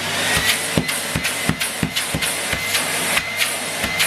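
Numatic Henry Turbo HVT160 vacuum cleaner running, a steady rush of air with a thin high whine, over a regular series of sharp knocks about three a second.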